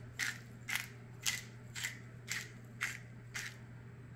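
Manual twist pepper mill grinding peppercorns: a run of about seven short crunchy grinds, roughly two a second, as the top is twisted back and forth.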